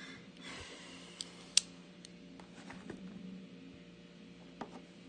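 Hands opening a sealed 2018 Panini Select football card box: quiet rustling of the box and its wrapping with light taps, and one sharp click about one and a half seconds in.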